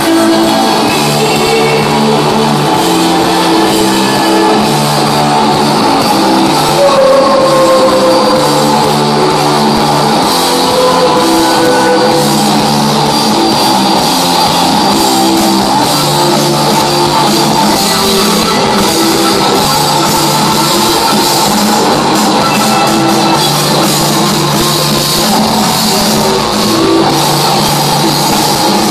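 A psychedelic rock band playing live through a large concert PA, heard from within the crowd: a repeating bass and guitar riff over a steady drum-kit beat, loud throughout.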